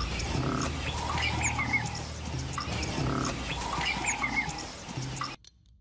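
Animal and bird calls with short high chirps over a low steady rumble. The same stretch of about three seconds plays twice over, then cuts off suddenly near the end.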